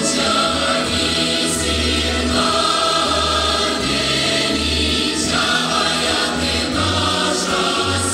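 Russian folk-style song: a choir singing over instrumental backing with a pulsing bass beat and occasional cymbal strokes.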